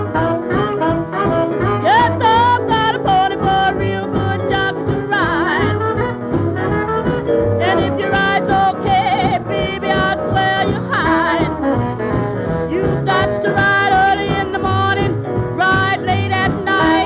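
Music: a song with a singing voice over an instrumental backing with a steady beat. The voice's pitch wavers and swoops.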